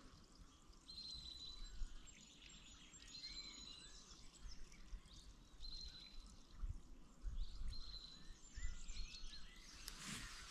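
Songbirds singing faintly: a short, high, steady note repeated about every two seconds, with small chirps between, over a low outdoor rumble.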